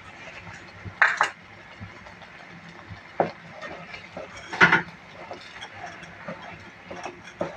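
Wooden spatula stirring thick spinach soup in a pan, knocking and scraping against the pan a few times, loudest about four and a half seconds in, over a steady faint hiss from the simmering soup.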